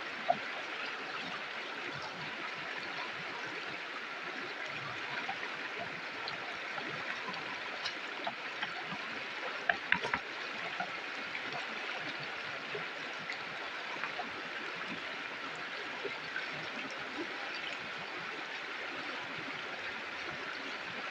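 River water flowing steadily over rocks, a constant bright rushing and trickling, with a few sharp clicks, one just after the start and a short cluster about halfway through.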